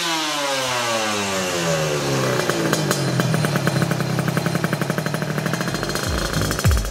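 Kawasaki Ninja R two-stroke 150 cc engine through a stainless Creampie ZZ1 racing exhaust: revs fall away after a blip of the throttle and settle into a rapid, even idle. Music starts near the end.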